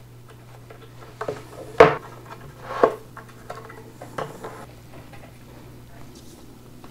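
Wooden dowels and particleboard panels knocking and clicking as dowels are pushed into the holes in the panel edges: about four short knocks with small ticks between, the loudest about two seconds in.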